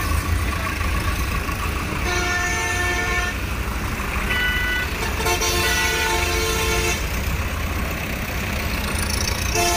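Farmtrac tractors' diesel engines running in a low steady rumble while vehicle horns honk in long blasts: about two seconds in, again around five seconds, and once more near the end.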